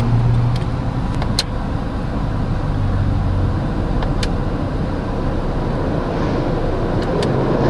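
Steady in-cabin hum of a Changan CS75 Plus idling in park, its 1.5-litre turbocharged four-cylinder at about 900 rpm. A few faint, scattered clicks sound over it.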